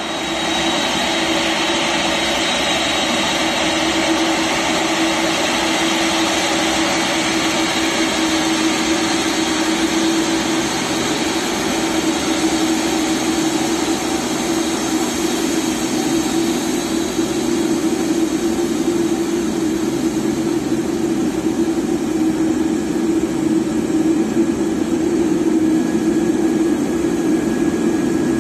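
Boeing 747-8 freighter's four jet engines running at taxi power: a steady jet noise with a held hum under it.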